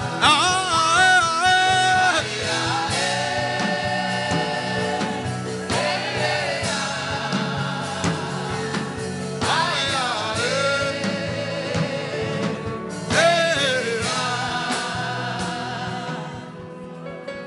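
Gospel worship chant: voices singing long held phrases with vibrato over an instrumental backing, fading out near the end.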